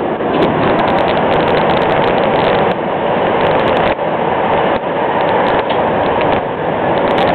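Montreal Metro rubber-tyred train running, heard from inside the moving car: a loud, steady running noise with faint scattered clicks.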